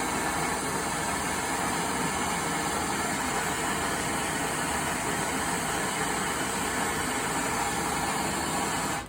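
Gas soldering torch burning steadily with an even hissing noise as it heats a copper pipe joint, then shut off suddenly near the end.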